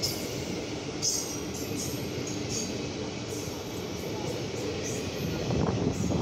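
Indian Railways passenger coaches rolling past at speed: a steady rumble of wheels on the rails, with a few short, sharp high-pitched clicks. It grows louder near the end.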